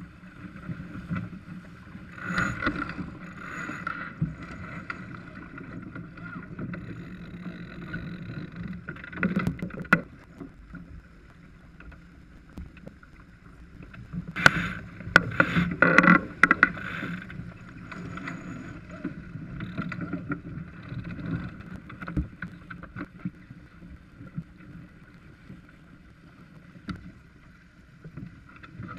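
Water rushing along the hull of a Farr 280 sailboat under sail, with wind on the microphone. Sharp knocks and clicks from the crew and deck gear come a few times, most densely about halfway through.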